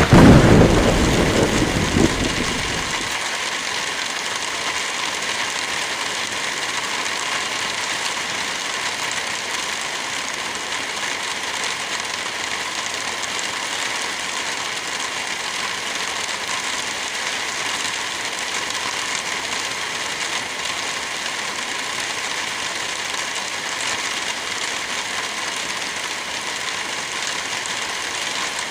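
Steady hiss of wind through forest trees with light rain falling. A loud low rumble at the start dies away over about three seconds.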